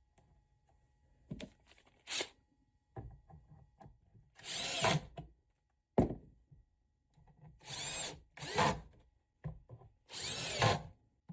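Power drill/driver driving the woofer's mounting screws into the subwoofer cabinet, in several short bursts that speed up and slow down. There is a single sharp knock about six seconds in.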